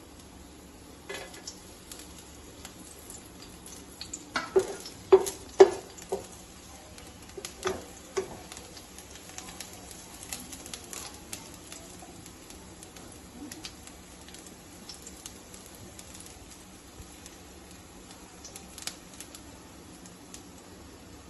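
Chopped pieces frying in a little oil in a kadai, with scattered small crackles and ticks. A wooden spatula knocks and scrapes against the pan several times, loudest from about four to six seconds in.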